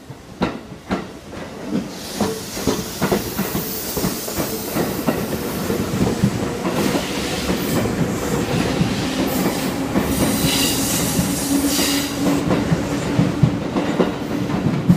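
Seibu Tamako Line electric train pulling out of the station and running past over the points, its wheels clacking over rail joints and switch gaps, with rumble building as it gathers speed. A steady hum comes in around the middle, with a faint high wheel squeal.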